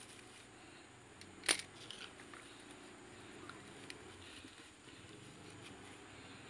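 Pruning shears cutting into a small ficus bonsai's woody stem: one sharp snap about one and a half seconds in, with a few faint clicks around it.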